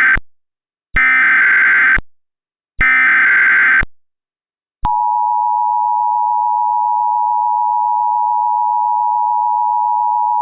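Emergency Alert System SAME header: the end of one data burst, then two more warbling data bursts about a second apart, encoding a tornado warning. About five seconds in, the steady two-tone EAS attention signal (853 and 960 Hz together) starts and holds.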